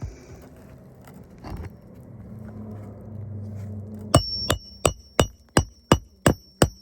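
Hammer striking a steel roof snake to drive a roofing nail under a shingle: eight quick, ringing metallic blows, about three a second, beginning a little past halfway, after quieter shuffling.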